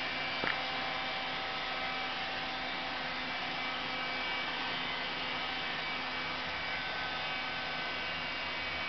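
Vacuum cleaner motor running steadily, a hum with several steady whining tones, with one short click about half a second in.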